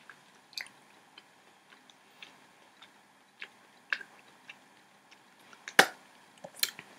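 A person chewing a mouthful of boba tapioca pearls, with soft wet mouth clicks and smacks; a sharper click about six seconds in is the loudest.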